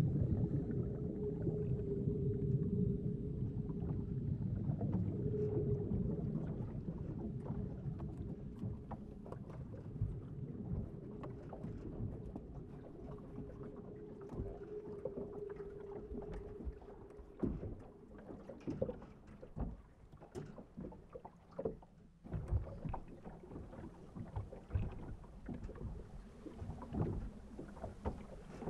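Water lapping against a small boat, with irregular soft knocks from about halfway on, under a low steady hum that fades out over the first half.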